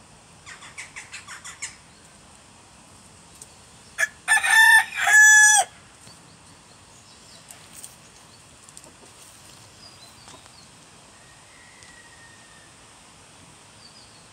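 A rooster crowing once, about four seconds in: a loud cock-a-doodle-doo in a few broken notes that ends in a held note. Shortly before it, a chicken gives a quick run of about seven short clucks.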